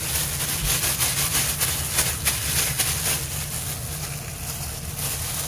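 Quick repeated scratchy rubbing strokes, densest for the first three seconds and then sparser, over a steady low hum.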